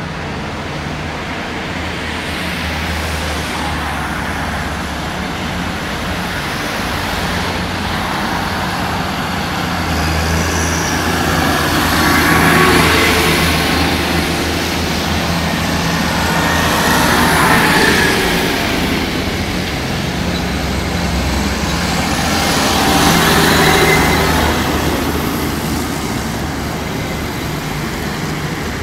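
A column of Case tractors driving past on a wet road: diesel engines running with tyre hiss. The sound swells and fades three times as tractors go by close.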